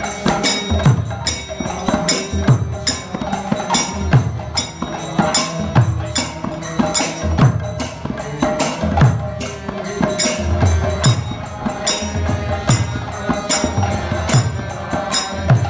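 Kirtan music: a harmonium's sustained reedy chords under a man's chanting voice, with jingling hand percussion and low drum strokes keeping a steady rhythm.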